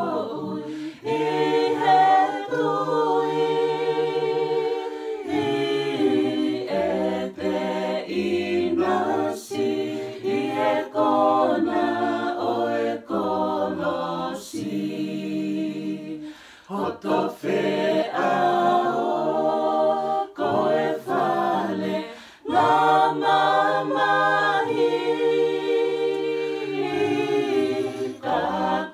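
Mixed group of men's and women's voices singing a Tongan gospel song a cappella in harmony, with a couple of short breaks between phrases.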